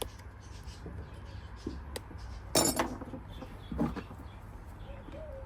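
A few clinks and knocks of metal tools being handled, the loudest a short clatter about two and a half seconds in, over a low steady hum.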